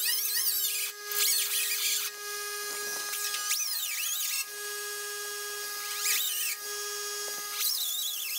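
Small right-angle die grinder with a 3-inch Roloc sanding disc running at a steady high whine while it grinds the cab's sheet-steel panel. The disc squeals on the metal in short cries that rise and fall in pitch.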